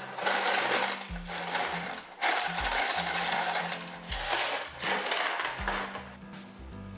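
Electric blender or food processor motor running in four short pulses of one to two seconds each, with brief pauses between, over soft background music.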